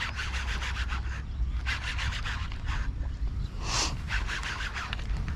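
Fishing reel with a fish hooked on the line, giving out a rapid rasping click in several short bursts with gaps between them.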